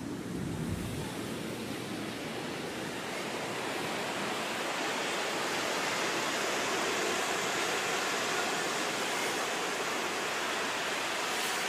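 Ocean surf washing on a beach, a steady hiss that swells slightly toward the middle, with some wind on the microphone.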